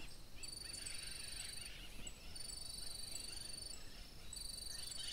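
Insects chirring outdoors: several high, pulsing trills, each lasting about a second, overlapping and repeating one after another.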